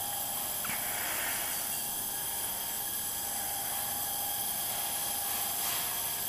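Steady hiss of a lit Bunsen burner flame, with faint steady high tones above it.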